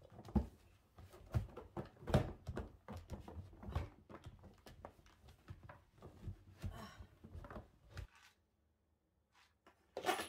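Cloth rubbing and wiping the inside of a white plastic storage cabinet, with irregular knocks and clatter of the plastic panels as it is handled, stopping about eight seconds in. A short burst of rustling comes just before the end.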